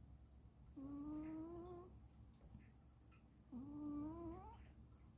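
Faint snoring with a squeaky, whistling note on each breath. There are two snores about two and a half seconds apart, each lasting about a second and rising slightly in pitch.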